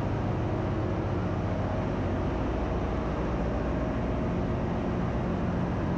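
Steady engine-room drone of running ship's auxiliary machinery: a continuous low hum with a faint steady tone above it.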